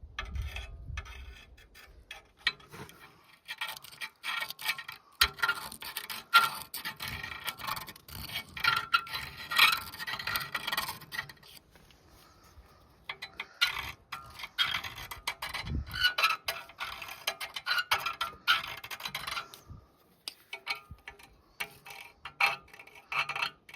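A metal scriber scratching on a thin 1/16-inch steel template plate, tracing hole positions, in two long spells of rapid scraping strokes mixed with small clicks, with a short pause between them.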